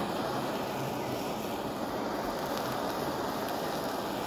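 Handheld kitchen blowtorch running with a steady hiss, its flame searing slices of wagyu beef.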